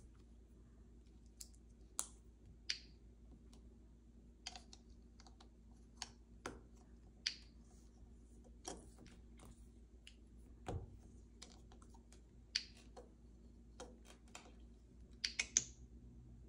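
Faint, irregularly spaced clicks and taps of plastic LEGO pieces being handled, with a quick run of several clicks near the end.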